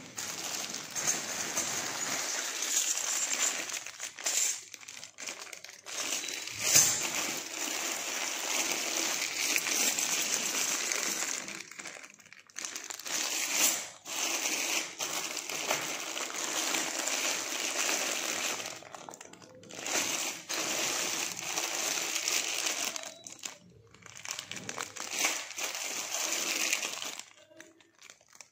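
Clear plastic bags of loose brass jewellery parts crinkling and rustling as they are handled and shifted, in stretches of a few seconds with short pauses and a few sharper crackles.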